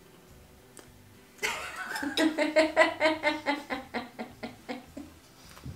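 Laughter that breaks out about a second and a half in: a quick, even run of 'ha' pulses, about six a second, tapering off near the end.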